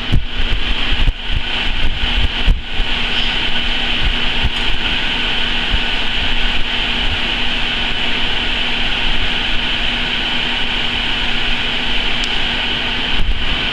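Exhaust hood fan running and pushing air through the duct: a steady rushing noise with a low hum under it. A few sharp clicks or knocks come in the first couple of seconds and once more near the end.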